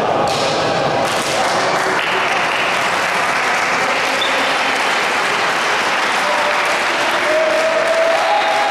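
Steady applause from a small crowd, with a voice or shout holding a note near the end.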